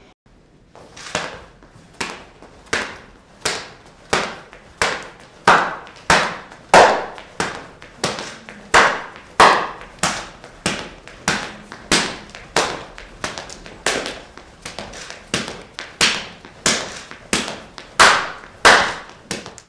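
A skipping rope braided from cow intestine and gauze slapping the floor with each jump, a sharp crack like a whip about every two-thirds of a second. Each strike is very loud.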